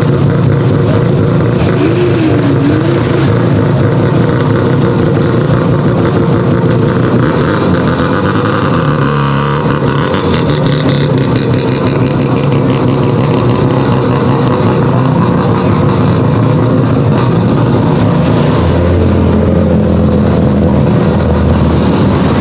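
Mazda RX-7 Group B's naturally aspirated 13B rotary engine running loud at low speed as the car pulls away slowly. Other rally cars' engines run alongside it.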